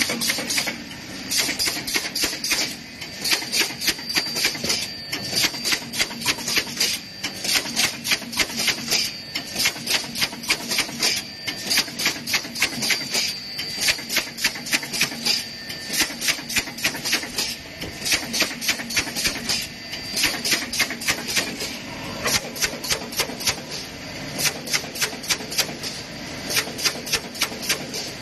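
ZH-CGJ wine box partition assembler running, its mechanism clacking rapidly and rhythmically, several clicks a second, as it slots cardboard boards into partitions, over a faint steady high whine.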